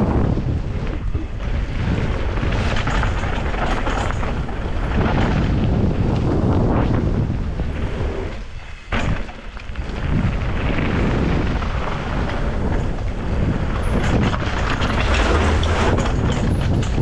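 Downhill mountain bike descent heard from a camera on the bike or rider: wind buffeting the microphone over the rattle of the bike and tyre noise on the trail, with a short quieter moment about halfway through.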